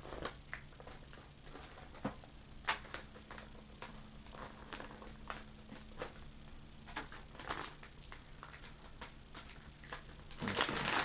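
Crinkling and rustling of a foil-backed resealable plastic bag being opened and handled, in scattered short rustles that grow louder and denser near the end.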